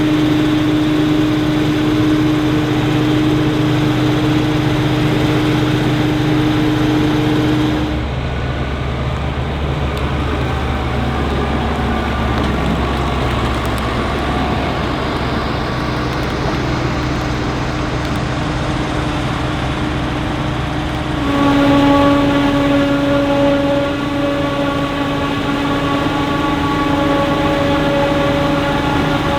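Heavy maize-harvest machinery running: the diesel engines of a forage harvester and silage-hauling tractors, with a steady high whine over the engine noise. The sound changes abruptly about 8 and 21 seconds in.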